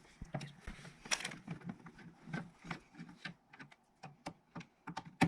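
Small irregular clicks and taps of PC parts being handled and fitted onto a motherboard, several a second.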